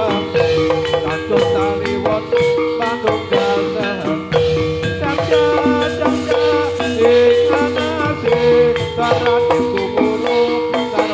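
Javanese gamelan-style music for a gedruk dance: metallophones ringing a repeating melody over drums, with rattling percussion.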